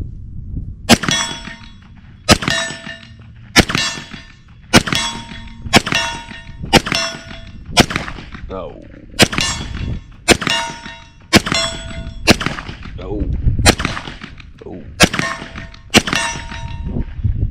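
ZEV OZ9c 9mm pistol fired unsuppressed in a steady string of about fifteen shots, roughly one a second. Most shots are followed by the ring of a steel target plate being hit downrange.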